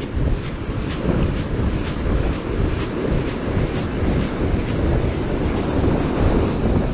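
Wind buffeting the microphone in a steady, heavy rumble, with breaking surf underneath.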